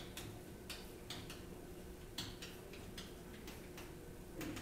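Faint taps and short scratches of a pen writing on an interactive whiteboard, a few light ticks a second.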